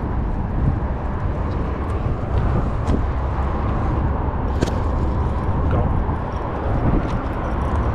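Steady low rumbling outdoor noise, heaviest in the bass, with a few sharp clicks; the loudest click comes about four and a half seconds in.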